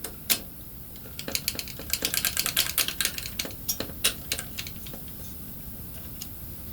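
A quick run of small, sharp clicks and ticks, thickest about two to three seconds in and thinning out afterwards: a screwdriver and small metal mounting hardware being handled on a CPU cooler.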